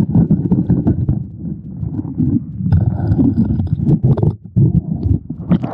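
Muffled underwater rumble of creek water around the camera, with many sharp clicks and scrapes of gravel and stones as a creek-bottom crack is worked for gold.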